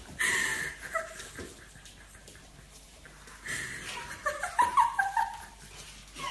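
Pug puppy giving short high-pitched barks and whines in two bursts: a few calls right at the start, then a run of several quick calls from about three and a half seconds in.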